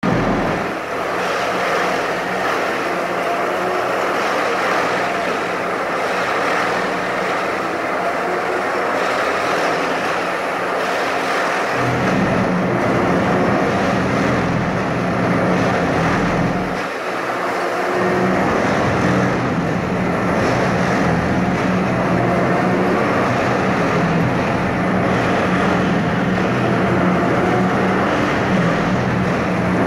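Track tamping machine running and working on the ballast: a loud, steady mechanical din with a steady hum. A deeper hum joins about twelve seconds in and drops out briefly around seventeen seconds.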